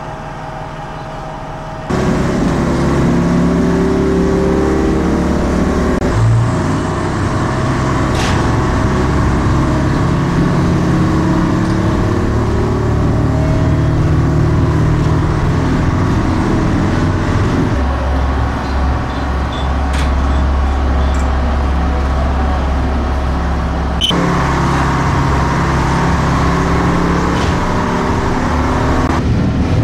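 Diesel engine of a DR class 771 railbus heard from inside the railcar while it runs under way, with its note shifting in steps several times. The sound gets much louder about two seconds in.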